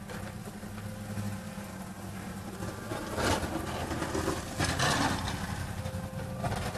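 Pickup truck with a front snowplow blade running as it plows a snowy parking lot: a steady low engine hum, with two louder, noisier swells about three seconds in and again around five seconds.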